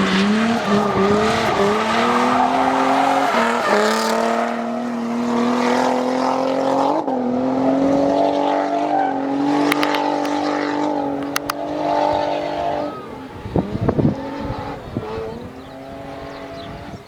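Twin-turbo Nissan 350Z's V6 engine held at high revs through a drift, its pitch wavering with two brief dips, over tyre noise. After about thirteen seconds the engine note drops away into a quieter stretch with a few sharp pops.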